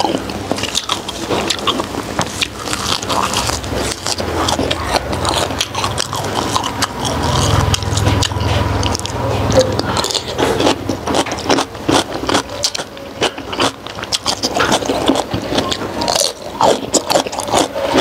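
Mouth sounds of someone eating soft steamed pork skin: chewing and smacking, a dense run of short clicks. A low hum comes in for a few seconds in the middle.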